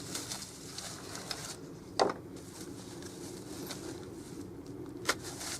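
Two sharp knocks as the bird table's parts are handled and put together: the louder one about two seconds in, the other near the end. A steady low hum runs underneath.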